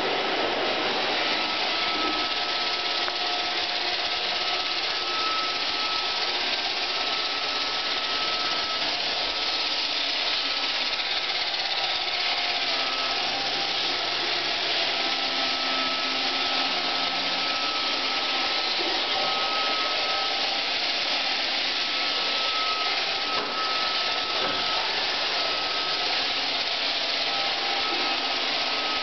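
iRobot Roomba 520 robot vacuum running steadily: an even hiss from its suction and brushes with a faint, steady high whine.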